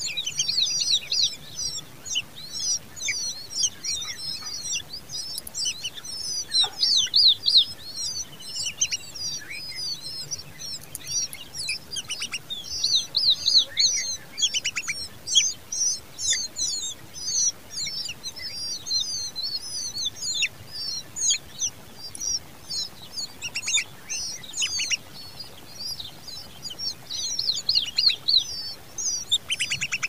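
Common babbler nestlings begging to be fed: a dense, continuous run of high-pitched, rapid chirps that swells in louder clusters.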